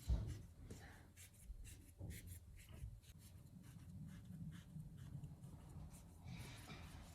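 Soft scraping and scratching with many small scattered clicks, over a faint low hum.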